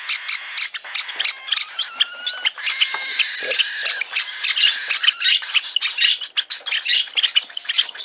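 Young cockatiel being hand-fed from a spoon, giving rapid, repeated begging chirps, several a second, with a short run of clearer whistled notes about two seconds in.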